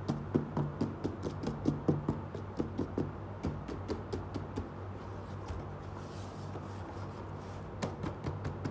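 Hands tapping and handling a cardboard box: a quick run of light knocks for the first four seconds or so, then softer rustling as the lid comes off, over a steady low hum.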